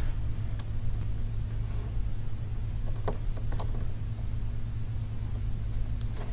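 Steady low hum, with a few faint light clicks about halfway through and again near the end as small iPhone parts are pressed and handled during the home button fitting.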